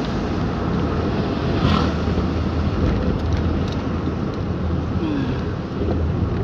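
Steady cabin noise of a car driving: a constant low rumble of engine and tyres with road hiss from the wet asphalt.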